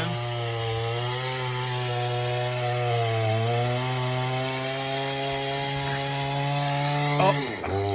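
Craftsman chainsaw running at a steady high speed as it cuts into the trunk of a silver maple. Its pitch sags a little about three seconds in and drops briefly near the end before picking back up.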